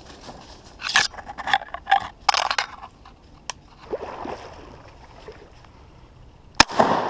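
A few seconds of brief rustling clatters, then a single shotgun shot near the end.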